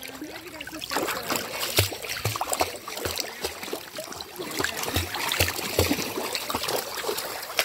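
A dog swimming in a backyard pool: water splashing and sloshing as it paddles, with soft low thumps about twice a second.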